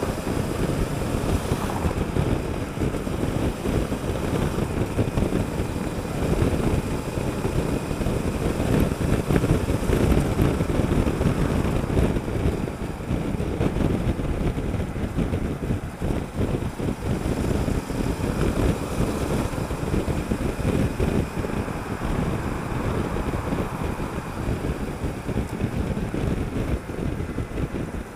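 Honda Africa Twin CRF1000L on the move: wind buffeting the action camera's microphone, mixed with the parallel-twin engine running, steady throughout.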